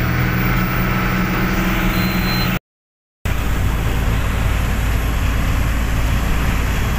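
Laden truck's diesel engine running with road noise, heard from inside the cab. A short dead gap about two and a half seconds in breaks it, then the engine and road noise go on steadily at road speed.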